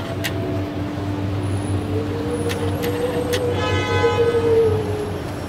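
City transit vehicle running with a steady low hum and a motor whine that rises and then falls. A short horn toot sounds about three and a half seconds in, with a few sharp clicks around it.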